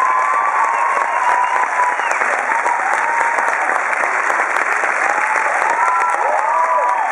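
Theatre audience applauding steadily, with high whoops from several voices rising and falling in pitch over the clapping, clustered around the start and again near the end.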